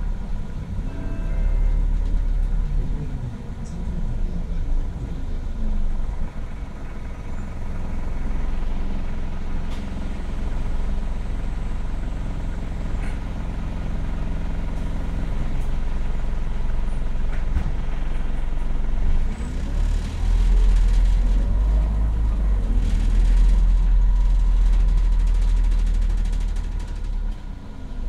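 MAZ 206 city bus heard from inside the passenger cabin, its engine and drivetrain running as it drives. The engine note rises in glides as it accelerates, near the start and again about two-thirds of the way through, where the low rumble grows louder. A thin steady whine runs under it.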